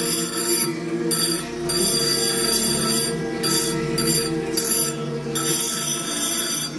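Small diamond wheel on an engraving lathe grinding into cased glass: a high, ringing whine that breaks off briefly several times as the glass is worked against the wheel.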